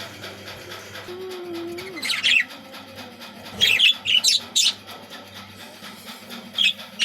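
Budgerigars chirping in short clusters of sharp, high calls: about two seconds in, a denser run around four seconds in, and again near the end.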